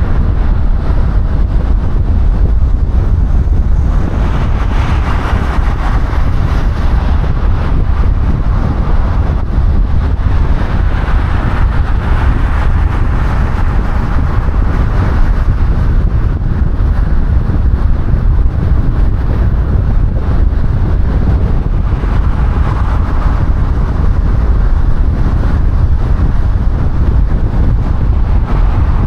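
A car driving at speed on a highway: steady low rumble of tyre and wind noise, swelling louder for a few seconds now and then.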